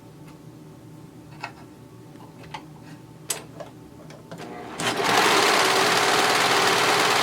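Brother 1034D serger running at speed for a couple of seconds, stitching and trimming fabric on a test run with its newly replaced upper and lower knives. It starts about five seconds in, after a few light clicks.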